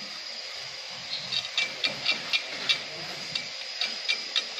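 A run of light, sharp metallic taps, roughly three a second and unevenly spaced, starting about a second in, over a steady high hiss.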